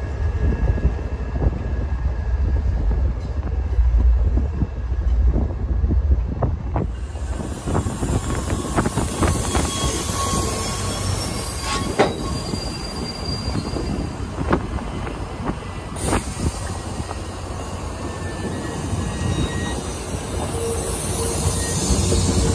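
MBTA commuter train passing close by. First the diesel locomotive's low rumble, then about seven seconds in the bilevel coaches roll past with a bright hiss of wheel-on-rail noise. Brief wheel squeal and a few sharp clicks of wheels over rail joints can be heard.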